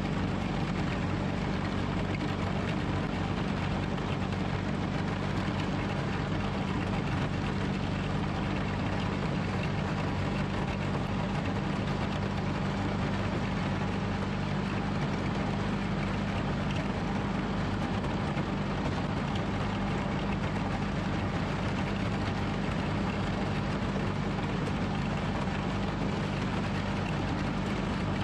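John Deere 420 garden tractor's air-cooled Onan twin-cylinder engine running at a steady speed while the tractor drives ahead pushing snow with its front blade.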